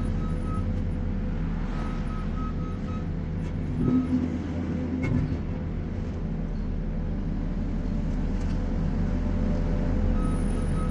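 Diesel engine of a New Holland C232 compact track loader running steadily under work, with a brief louder surge about four seconds in.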